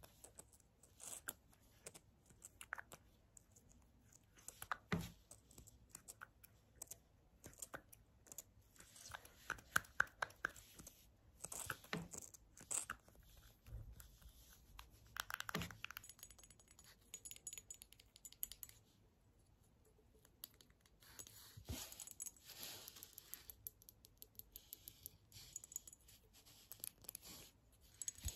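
Quiet, scattered clicks and taps of long fingernails and fingers handling a pink plastic-and-glass tube with a ball end, with brief scrapes between them and a thicker run of clicks around a third of the way in.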